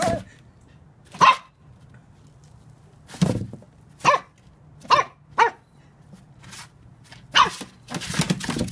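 Toy Manchester Terrier puppy yapping: about eight short, sharp barks at irregular intervals, with a longer, noisier burst near the end.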